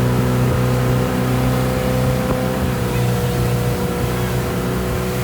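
Motorboat engine running at a steady pitch, with a rush of water and wind.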